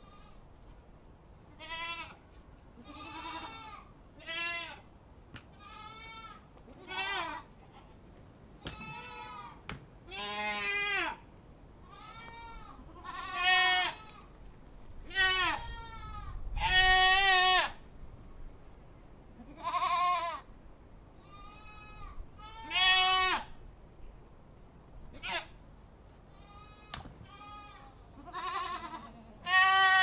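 Goats bleating over and over, about twenty quavering calls at irregular intervals of one to two seconds, some short and faint, others long and loud.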